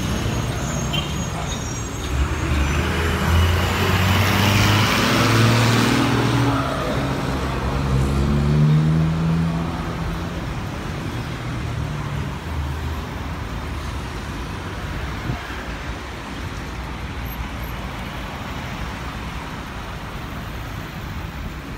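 Road traffic: a motor vehicle passes close by in the first half, its engine note climbing in pitch as it accelerates, loudest about four to nine seconds in. A steady traffic rumble follows.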